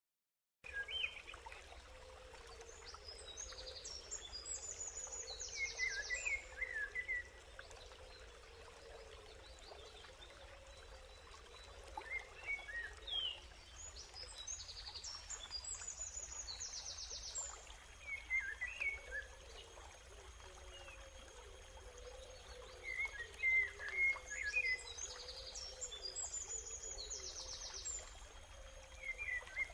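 Faint forest ambience: birds calling over a low, even hiss of flowing water. The same high trilled call comes back about every ten seconds, with shorter chirps in between.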